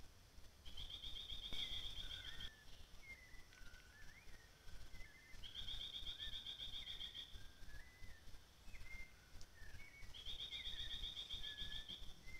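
Tropical forest ambience: short whistled bird notes scattered throughout, and a rapid, buzzy pulsed trill that comes three times, each lasting about two seconds.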